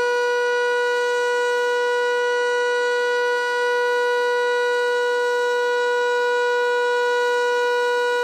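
Outdoor tornado warning siren sounding a steady alert tone, holding one pitch with no rise or fall.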